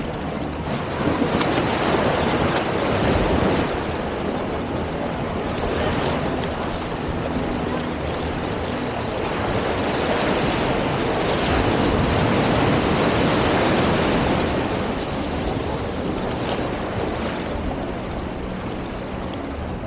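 Ocean surf breaking and washing on a beach, swelling louder and easing off in slow surges, with wind buffeting the microphone.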